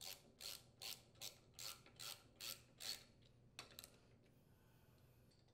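Flywheel puller being worked onto a small-engine flywheel, its bolts turned down against the metal: about eight short, faint scraping strokes, two or three a second, then two weaker ones about a second later.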